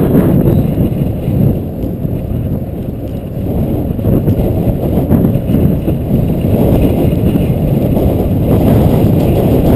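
Wind buffeting the microphone of a camera on a bicycle descending at speed: a loud, rumbling rush that eases a little about two to three seconds in.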